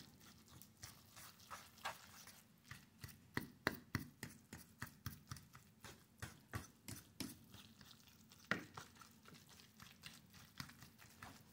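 Metal fork mashing soaked dog food into mush in a stainless steel bowl: faint, repeated taps and scrapes of the fork against the bowl, about two or three a second, thinning out near the end.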